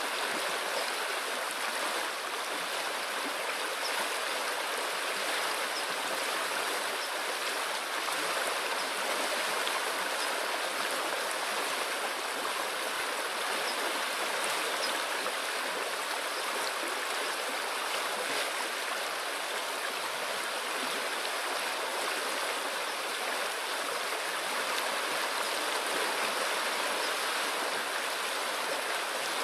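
A river flowing, a steady even sound of running water.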